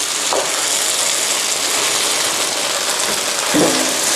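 Fresh wide rice noodles and bacon frying in a wok with a steady sizzle, a wooden spatula scraping and turning them against the pan.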